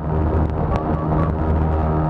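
Lazair ultralight's twin engines and propellers running at flight power, a loud, steady drone heard from on board.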